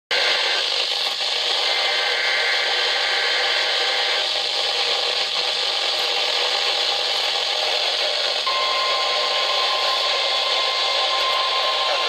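Midland NOAA weather radio's speaker hissing with steady static from a weak signal. About eight and a half seconds in, a faint steady tone joins and holds.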